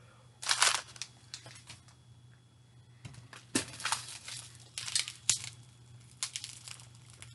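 Plastic snack wrapper crinkling and rustling in several short bursts as it is handled.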